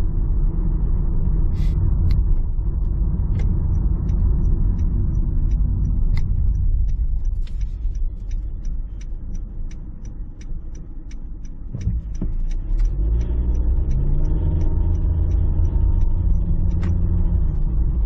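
Car cabin noise while driving: steady engine and road rumble that eases off for a few seconds, then rises again with a climbing engine note as the car pulls away about twelve seconds in. A light, even ticking, about three ticks a second, runs through the middle of the stretch.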